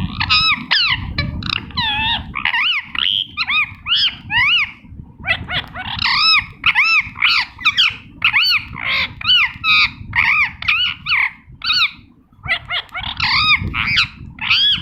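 Indian ringneck parakeet calling in a rapid run of short, arched squawks, about two a second, with brief pauses about a third of the way in and again near the end.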